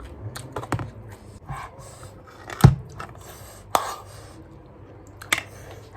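Raw cabbage being bitten and chewed: four or five short, sharp crunches, the loudest about two and a half seconds in, over a low steady hum.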